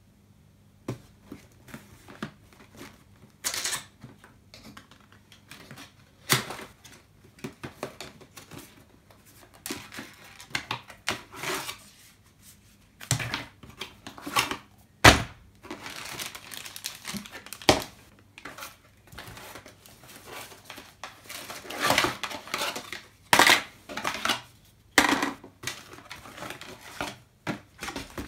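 Camera box and its packaging being handled and unpacked: cardboard and plastic wrapping rustling and crinkling in irregular spells, with scattered clicks and knocks and one sharp knock about halfway through.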